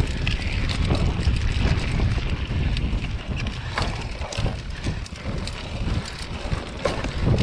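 Wind rushing over a GoPro's microphone during a fast mountain-bike descent, with the low rumble of the tyres on the dirt trail and frequent clicks and rattles from the hardtail bike over rough ground.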